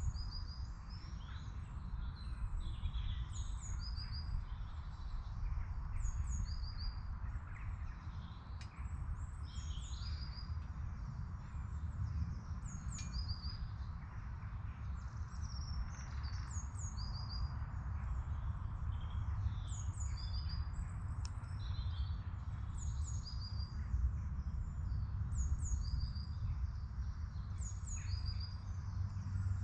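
Small songbirds singing, short high chirping phrases repeated every second or two, over a steady low rumble.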